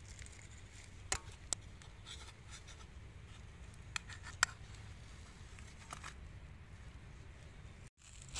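A metal fork clicking and scraping against a frying pan: a handful of sharp, light clicks over a low, steady rumble.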